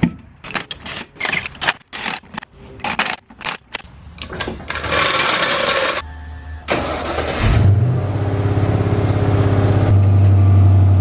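A run of irregular clicks and knocks while a truck wheel is fitted back on its hub, then the Ford Bronco's engine cranks and starts about seven seconds in and settles into a steady idle.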